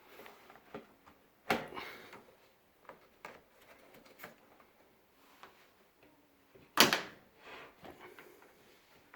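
Two sharp knocks, about five seconds apart, each with a brief ringing tail, and lighter clicks and taps between them: the sound of appliance parts being handled during a dryer repair.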